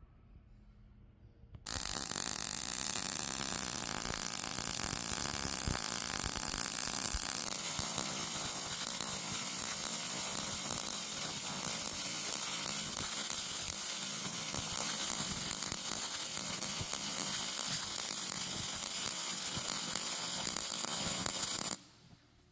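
Electric welding arc running a bead: it strikes about two seconds in, burns with a steady dense crackle for about twenty seconds, and cuts off suddenly near the end.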